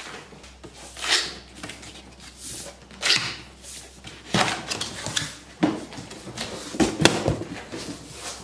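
Cardboard shipping box being opened by hand: irregular scraping and rustling of cardboard and plastic wrap as the top flaps are worked loose and pulled open, with several short sharp knocks in the second half.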